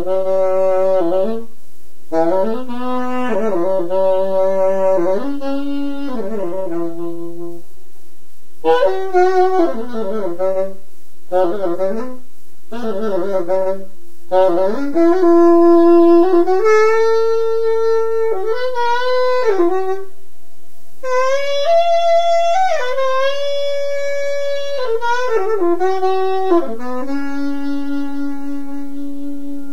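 Saxophone improvising melodic phrases of quick notes, broken by short pauses for breath, over a steady held tone underneath. Near the end it settles on one long sustained low note.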